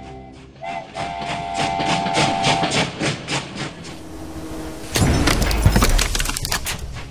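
Cartoon steam-train sound effects: a train whistle blowing a held chord for about two seconds over a rhythmic chugging. About five seconds in, a loud low crash with a rumble lasting a second or so.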